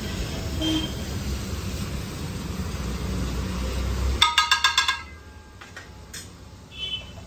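A metal spatula stirring and scraping spiced egg as it sizzles on a hot griddle. About four seconds in comes a quick run of about seven ringing metal taps, after which it goes quieter.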